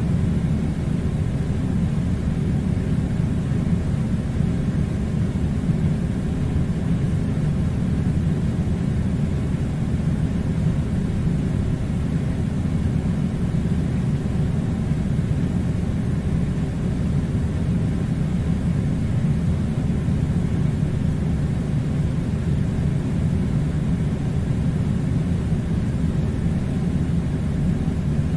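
Air conditioner running with a steady, low rumbling rush of air that does not change.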